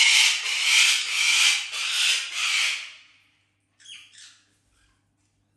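Parrot screeching harshly in a run of pulses for about three seconds, then one shorter squawk about a second later.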